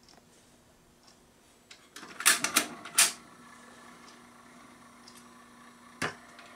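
BSR Quanta 720 automatic turntable: a quick cluster of mechanical clicks and clunks about two to three seconds in as the tonearm sets down on the record. Then a faint steady hum from the playback, with one sharp pop near the end.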